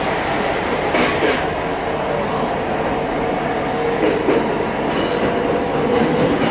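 Running noise of a train heard from inside the railcar as it gets under way, with pairs of clicks as the wheels pass over rail joints about a second in and again about four seconds in. A faint steady squeal from the wheels runs through the second half.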